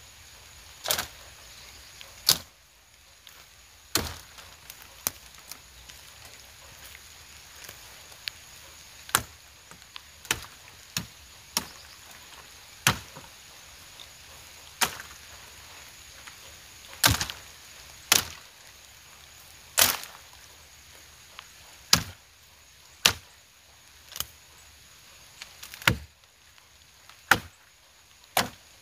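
Chopping blows from a hand-swung blade striking felled branches and wood. The sharp strikes come one every second or two at an uneven pace, some in quick pairs.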